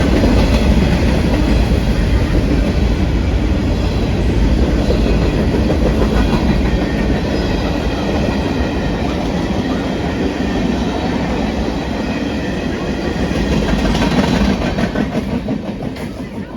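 A train passing close by on the tracks: loud, steady noise of the wheels on the rails that fades away near the end.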